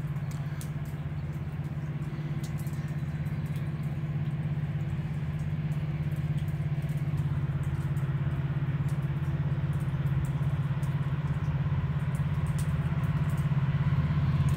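Diesel locomotives of an approaching Union Pacific freight train running, a steady low engine drone that grows slowly louder.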